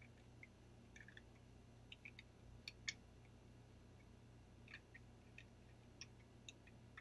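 Near silence: a faint steady room hum with a scattering of soft, irregular small clicks and ticks, the clearest about three seconds in.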